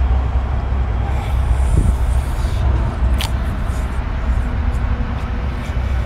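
Steady low rumble of a running engine, with a single short click about three seconds in.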